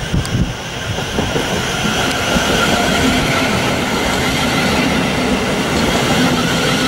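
Thameslink Class 700 electric multiple unit running along the platform close by: a steady rush and rumble of the train on the rails. It builds over the first second or so and then holds.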